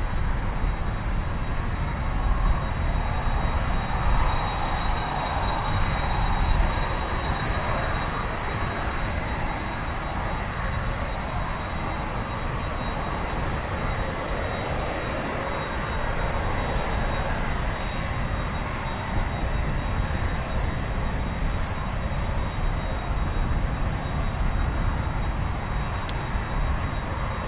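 Boeing 767-300F freighter's twin jet engines running at low taxi power as it lines up on the runway: a steady rumble with a thin, high whine.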